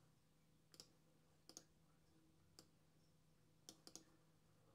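Faint clicks of a computer mouse, a few single clicks and some in quick pairs and bursts, over near silence.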